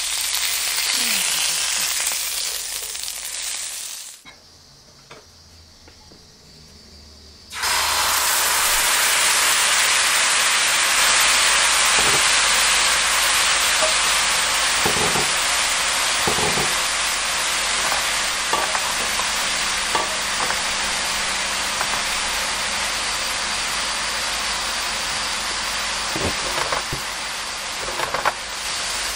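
Semi-dried pollack fillet sizzling in oil in a frying pan, dying away about four seconds in. After a few seconds of quiet, a red chili seasoning sauce bubbles and sizzles steadily in a frying pan, with scattered small pops.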